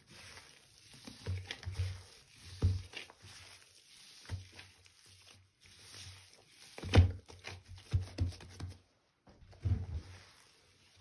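Gloved hands kneading and squeezing damp powder mixed with water in a bowl: irregular soft crunching and squishing with dull thumps, the firmest about halfway through and again near the end.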